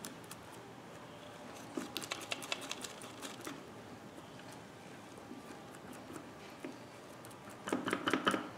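Gloved hands handling a greasy CV joint and its rubber boot: faint small clicks and squishes, in a cluster about two seconds in and a louder cluster near the end.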